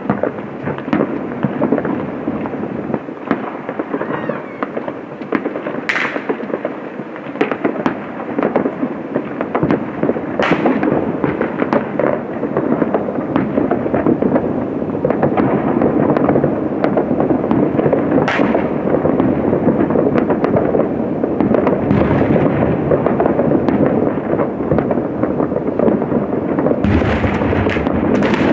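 Fireworks going off without a break: a dense crackle of many bursts, with a few louder sharp bangs standing out and a quick cluster of them near the end.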